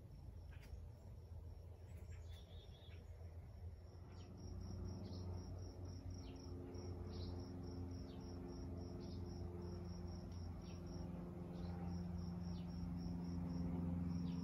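Faint cricket chirping, a high thin chirp repeated a few times a second, over a low steady hum that slowly grows louder.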